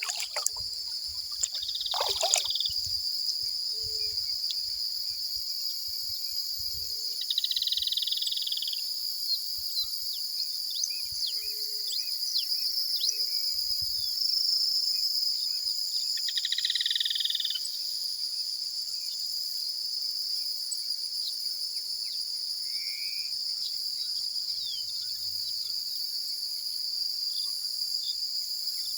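Steady, high-pitched trilling of an insect chorus such as crickets, with two louder calls of about a second each and a few short bird chirps over it. A few low soft bumps come in the first seconds.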